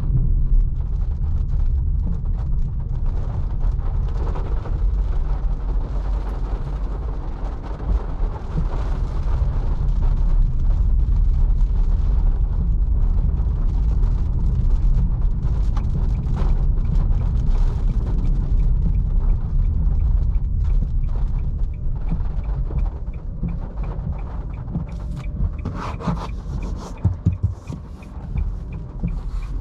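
Cabin noise of a Nissan Leaf electric car driving in rain: a steady low rumble of tyres on wet road, with the hiss of rain and spray and scattered light knocks. Near the end a run of faint, evenly spaced ticks comes in, a few louder knocks sound and the rumble eases.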